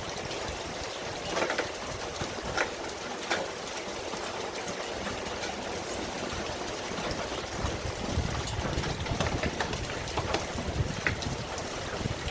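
Steady rain falling, with individual drops ticking sharply on nearby surfaces. A low rumble rises underneath for a few seconds past the middle.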